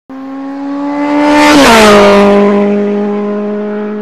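A vehicle passing by at speed: a steady engine note that drops in pitch as it goes past, with a rushing noise that swells to a peak and fades.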